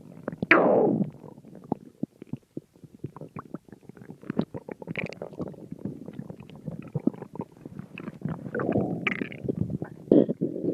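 Stomach growling: a steady run of small gurgles, pops and crackles, with longer, louder rumbles about half a second in and again near the end.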